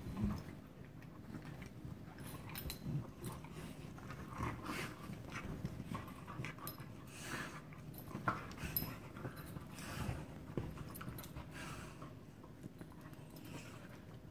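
Two dogs play-wrestling on a couch: irregular panting, snuffling and scuffling against the cushions.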